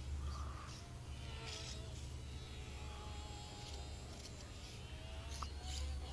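Faint wavering whine of a micro electric RC aerobatic plane's motor flying overhead, its pitch rising and falling with the throttle, under a low rumble of wind on the microphone and scattered short high chirps.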